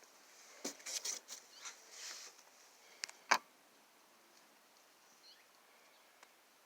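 A cluster of small clicks and rustles, then one sharp click about three seconds in, followed by faint room tone.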